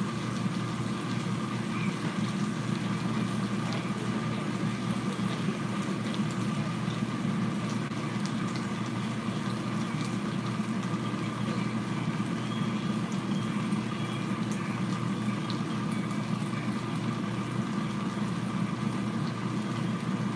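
Steady whirring hum of a running kitchen appliance fan, with faint scattered crackles from meat frying in the pan.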